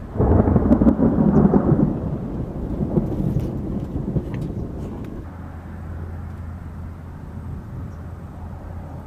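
Thunder: a loud clap just after the start that rolls away over about five seconds. A steady low hum sets in about five seconds in.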